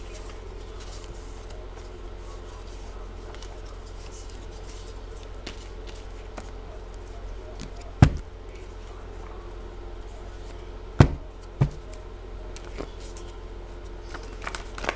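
Tarot cards being handled over a tabletop, with three sharp knocks about eight and eleven seconds in as the deck or cards hit the table, over a steady low hum.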